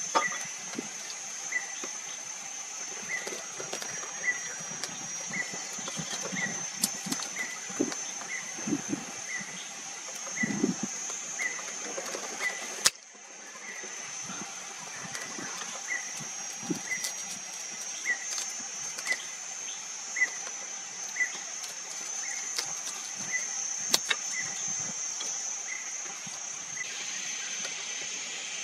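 Woodland ambience: a steady high-pitched drone and a short chirp repeating about every 0.6 seconds, with scattered knocks and clicks. The sound drops out briefly about thirteen seconds in.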